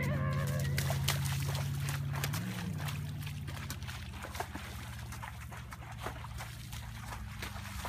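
Rebuilt 454 big-block Chevy V8 in a tunnel-hull boat idling low and steady and getting quieter, with a short rise and fall in engine pitch about two and a half seconds in. Water laps and trickles against the hull in quick small splashes.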